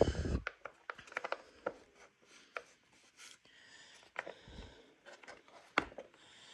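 Handling noise: scattered light clicks, taps and rubbing, several close together about a second in and a sharper tap near six seconds.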